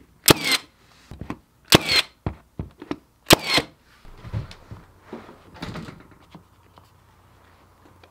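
Milwaukee M18 cordless trim nailer firing three nails, each a sharp shot, about a second and a half apart. Softer knocks and handling noise follow from positioning a trim piece, then it goes quiet near the end.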